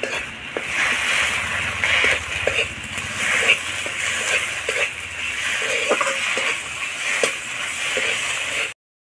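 Metal spatula scraping and stirring a thick onion-and-poppy-seed masala in a metal kadai, with short repeated scrapes over a steady frying sizzle. Wind rumbles on the microphone through the first half.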